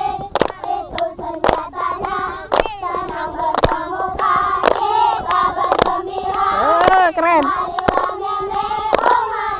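A group of children sing a scout cheer song (yel-yel) in unison, clapping their hands roughly once a second.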